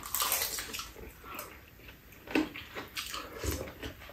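Close-up eating sounds: wet chewing, lip smacks and noodle slurps from two people eating stir-fried tuna and octopus, as a string of short irregular smacks with a couple of louder ones in the middle.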